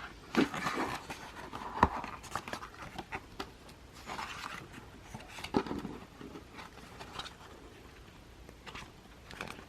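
Handling noise from a thick photo book being opened and its pages turned: paper rustling with irregular light knocks and scrapes.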